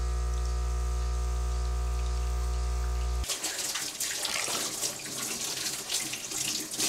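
Espresso machine pump humming steadily while it pulls a shot, cutting off suddenly about three seconds in. After that, liquid splashes and clinks in a stainless steel tumbler as it is stirred with a wooden stick.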